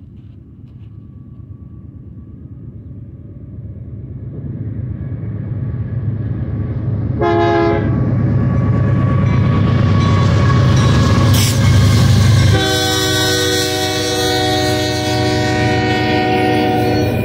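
Westbound BNSF freight train led by GE diesel locomotives: the engines' rumble builds as the train approaches, with a short air-horn blast about seven seconds in. A long horn blast follows from about twelve and a half seconds in as the locomotives pass, over the rolling of the double-stack intermodal cars.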